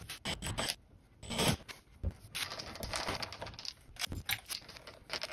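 Cordless Makita drill/driver running screws through a snorkel mounting bracket into the van's sheet-metal body, in short bursts with clicks and scraping.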